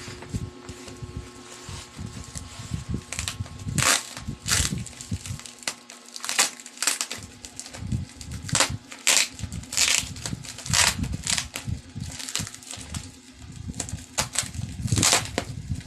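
Packaging crinkling and rustling in irregular sharp bursts as it is handled and opened.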